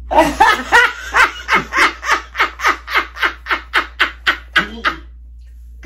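A woman laughing hard, a long run of rapid 'ha' pulses at about four a second that stops about five seconds in.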